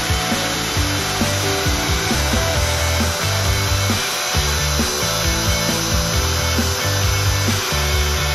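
CNC router spindle running with its end mill cutting 3 mm aluminium sheet: steady cutting noise with a thin, steady high whine. Background music with a bass line plays along.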